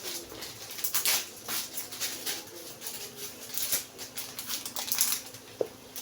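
Light, irregular clicks, scrapes and rustles of kitchen handling while fried rice is being seasoned, a dozen or so quick sounds with short gaps, over a faint steady hum.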